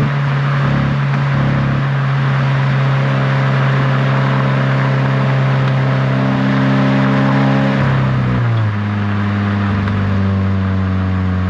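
Toyota GR86's 2.4-litre flat-four running through a GR Performance dual exhaust, holding a steady engine speed while driving. About eight seconds in, the note drops and settles at a lower steady pitch.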